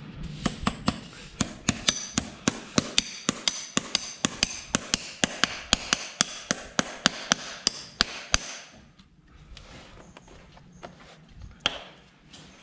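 Farrier's hammer striking steel horseshoe work in a quick, even rhythm of about three blows a second, each with a bright metallic ring. The hammering stops about eight seconds in, and one more strike follows near the end.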